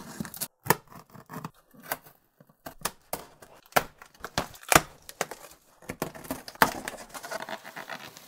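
A hooked plastic safety box cutter slicing and ripping through packing tape on a cardboard shipping box, in a run of sharp, irregular cuts and tears. Near the end the cardboard flaps are pulled open with a rustle of tape and plastic wrap.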